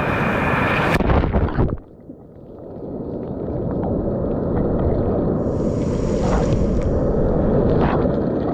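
Wind buffeting the microphone with a heavy low rumble, over the wash of the sea. The sound breaks off briefly about two seconds in, then builds back up and holds steady.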